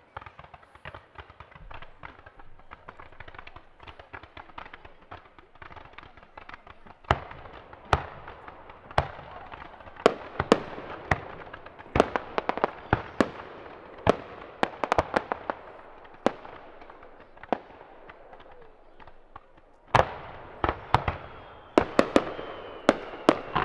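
Aerial fireworks display: a dense crackle of many small pops, then from about seven seconds in a run of loud, sharp shell bursts at irregular spacing with crackling between them. After a short lull, another quick volley of bursts comes near the end.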